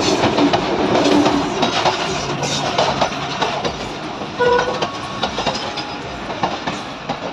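Pakistan Railways passenger train, its diesel locomotive and coaches rolling past along the platform as it pulls into the station, wheels clicking steadily over the rail joints. A brief high tone cuts in about four and a half seconds in.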